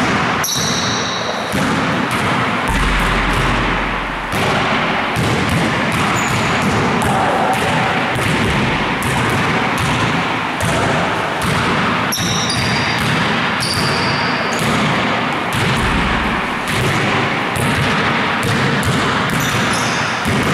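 Basketballs bouncing and being passed, a steady run of quick thumps.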